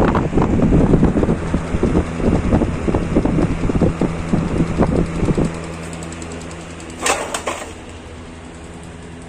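Electric fan running, its motor giving a steady low hum. For the first five seconds or so, airflow buffets the microphone as a fluttering rumble, and a short sharp noise comes about seven seconds in.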